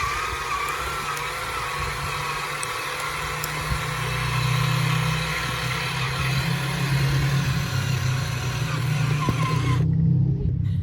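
A motor running steadily, with a low hum that grows a little louder about four seconds in. Near the end the higher sounds cut off abruptly.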